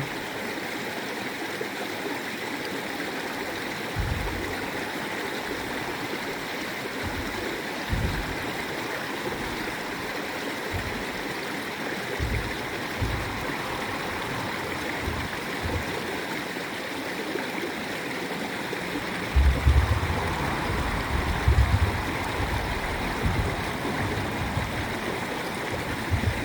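Stream water flowing and gurgling steadily. Short low rumbles of breeze on the microphone break in now and then, heaviest and loudest about twenty seconds in.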